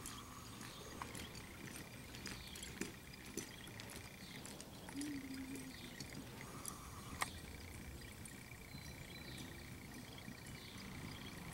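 Faint hoofbeats and tack noise from a horse loping on soft arena dirt: scattered soft thuds and clicks, with one sharper click about seven seconds in.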